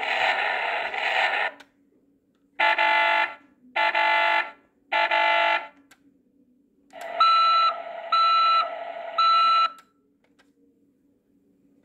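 Electronic sound effects from a 2011 Hess toy truck's built-in speaker as its roof buttons are pressed: a continuous pitched sound that stops about a second and a half in, then three short alarm-like blasts about a second apart, then a longer sound with three repeated high beeps over a steady tone.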